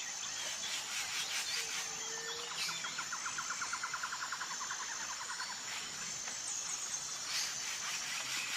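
Outdoor nature ambience of birds calling over a steady background hiss: a rapid rattling trill of short repeated notes, about seven a second, for several seconds, and a brief low whistle early on. A high, thin, steady note comes and goes throughout.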